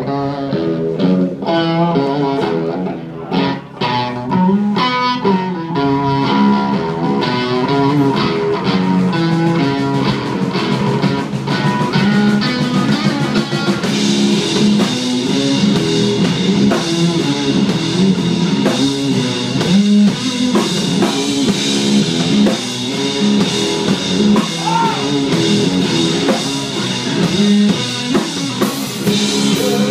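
Live blues-rock band playing an instrumental passage: a distorted electric guitar riff over electric bass and a drum kit. About halfway through, the band's sound fills out with a steady wash of cymbals.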